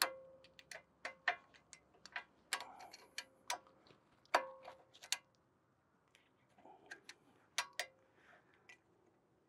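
Light metallic clicks and taps of channel-lock pliers working a steel brake caliper retaining spring, bending its lower end and seating it against the caliper; some clicks ring briefly. The clicks come irregularly, about two a second at first, then thin out after a short pause about halfway through.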